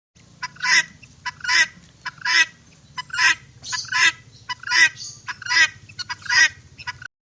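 A fowl giving a rhythmic run of two-part calls, a short note then a louder one, about eight times a little under a second apart.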